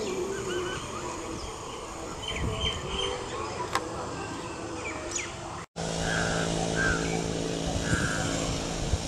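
Outdoor ambience with small birds chirping in short high notes. After a brief break about halfway, a steady low machine hum sets in, with a few short repeated bird calls over it.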